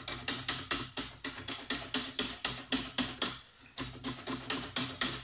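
A cucumber slid rapidly over a stainless-steel mandoline, slicing with a quick run of sharp strokes about five a second and a short pause about three and a half seconds in. Music plays beneath.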